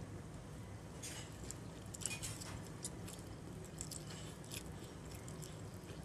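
A person chewing and eating cold noodles in sesame sauce, heard as scattered soft mouth clicks and smacks over a steady low hum.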